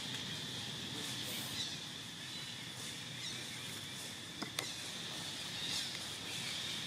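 Outdoor woodland ambience dominated by a steady, high-pitched insect drone, with two sharp clicks a fraction of a second apart about four and a half seconds in.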